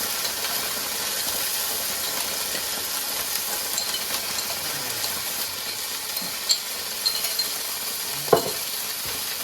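Garlic and green curry paste sizzling in olive oil in a frying pan as it is stirred, with a few short knocks of the utensil against the pan, the loudest about eight seconds in.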